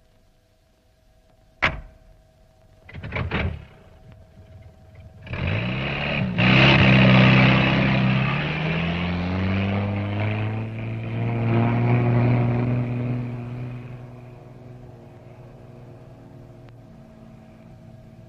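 A sharp click and a short rattle, then a motor vehicle's engine starts about five seconds in, its pitch rising as it revs. It keeps running with a wavering pitch, then fades to a low steady hum in the second half.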